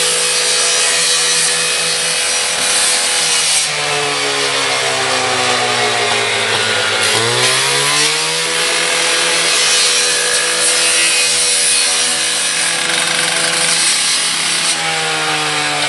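Gas-powered partner saw with a 14-inch blade cutting through a garage door panel, running loud and steady with a rasping cut. Its engine pitch sags under load in the middle, then picks up again quickly.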